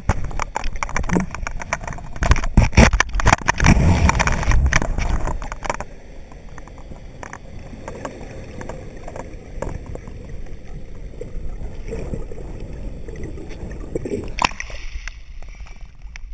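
Sea water heard through a camera in a waterproof housing, moving underwater: loud muffled rushing and sloshing with many knocks for about the first six seconds, then a quieter steady rush with scattered clicks, and one sharp knock near the end.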